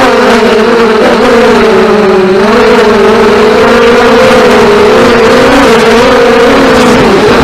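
FPV racing drones' brushless motors and propellers whining loudly, the pitch wavering up and down as the throttle changes in flight.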